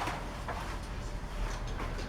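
Packaging being stripped off a new BMX bike: short rustling and scraping sounds of cardboard and plastic wrap being pulled and handled.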